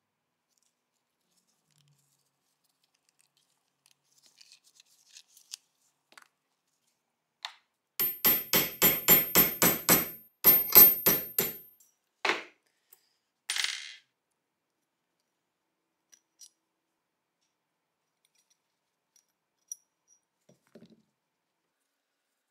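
Hammer tapping a pin punch against the rusty steel slide of a Tokarev pistol clamped in a vise, to drive a pin out. The blows come in two quick runs of about five a second with a high metallic ring, then two single blows, with faint clicks of parts being handled before and after.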